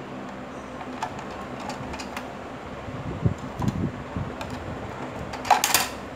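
Hard plastic parts of a manual vegetable chipser set being handled: scattered clicks and knocks as blade inserts are lifted out of a clear plastic container, with a louder brief clatter about five and a half seconds in. A steady low hum sits underneath.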